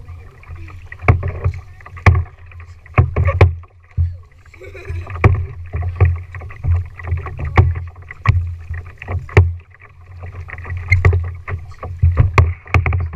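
Kayak paddle strokes: sharp knocks of the paddle on the plastic kayak and splashes, about one a second and unevenly spaced, over a steady low rumble.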